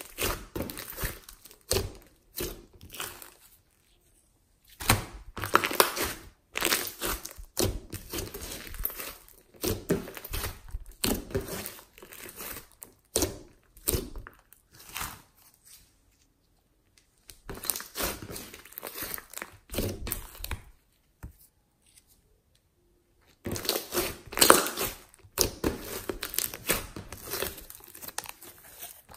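Glossy slime being pressed, poked and stretched by hand, giving sticky crackling and squishing noises in irregular bursts, with a few short pauses between handlings.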